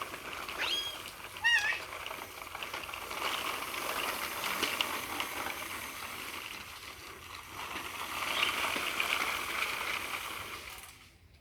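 Water splashing and sloshing steadily, cutting off near the end, with a couple of short high squeals from a child in the first two seconds.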